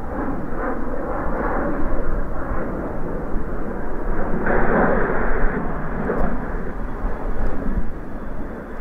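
F-15 Eagle twin-engine fighter jet flying over low with its landing gear down on approach: steady rushing jet-engine noise that swells about halfway through.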